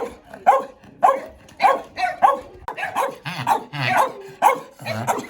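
An angry dog barking aggressively in a steady series, about two barks a second with no pauses.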